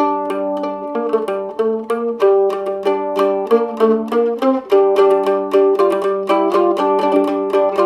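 Mandolin picked in a medieval-style improvisation: a low drone string keeps ringing while a quick plucked melody wanders above it, several notes a second.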